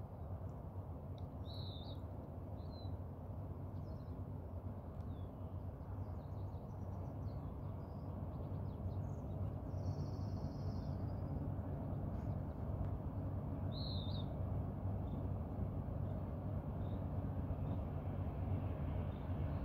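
Low, distant rumble of an approaching freight train, growing slowly louder, with a few short bird chirps over it, the clearest about 2 and 14 seconds in.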